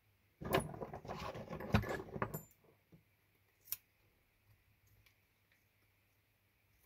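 Small metal fly-tying tools rattling and clinking together as they are handled, for about two seconds, then a single sharp click a little later.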